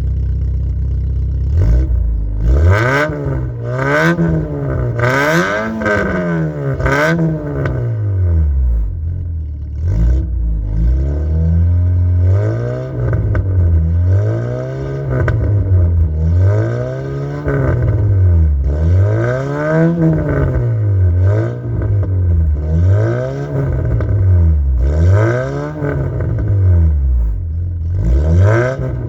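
Lancia Y's 1.2-litre 8-valve four-cylinder petrol engine idling briefly, then revved over and over, the revs climbing and dropping back every second or two.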